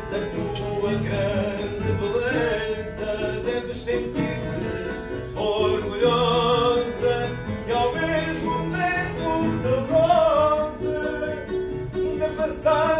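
Live fado: a singer holding long, wavering notes with vibrato over plucked guitar accompaniment.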